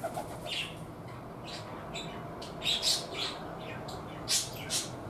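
Small birds chirping in short, high calls, about eight times in clusters, over a steady low background hum.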